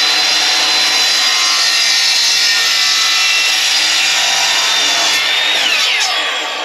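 Ryobi sliding miter saw running at full speed with a steady high motor whine while its blade cuts through a white plastic part and the wooden board beneath it. About six seconds in the motor is released and the whine falls away as the blade spins down.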